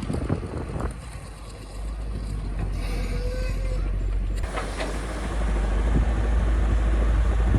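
Excavator diesel engine running steadily, with a few knocks in the first second and a brief faint whine a little past the middle.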